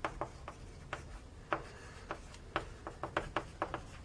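Writing on a board: a string of about a dozen sharp, uneven taps and clicks, coming quicker near the end.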